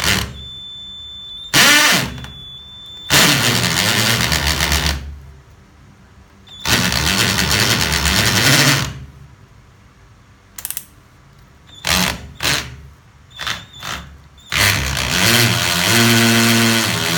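Cordless hammer drill (DeWALT-branded DCD700, brushless motor) boring into concrete with a masonry bit, run in three long bursts of about two seconds each with several short trigger blips in between; the last burst settles into a steadier hum near the end.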